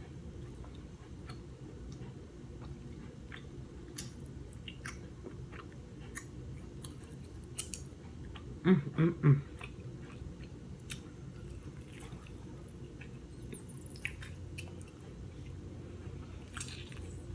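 Close-miked eating of king crab legs: chewing with scattered small clicks, and three short, louder, low sounds a little past halfway.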